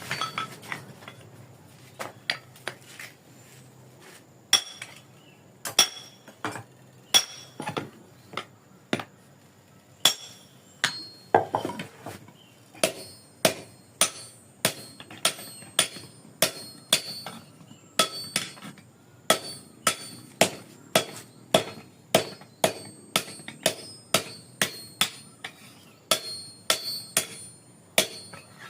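Blacksmith's hammer striking the steel socket of an oil-palm harvesting chisel (dodos) to enlarge its hole, each blow a sharp metallic clink with a brief high ring. The blows come irregularly at first, then settle into a steady rhythm of about two a second from about halfway through.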